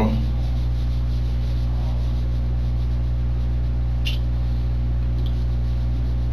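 Steady low hum and faint hiss of a room-camera audio recording in a quiet small room, with one brief faint click about four seconds in.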